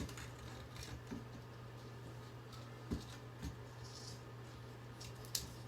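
Faint handling noises: a few light taps and clicks as small parts and tools are moved about, over a steady low hum, with one sharper click near the end.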